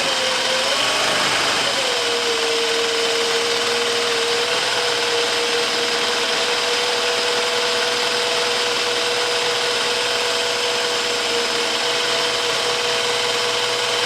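Juki DDL-8700 industrial sewing machine running steadily to wind a bobbin on its bobbin winder: a steady motor whine with a hum, its pitch wavering a little in the first two seconds and then holding level.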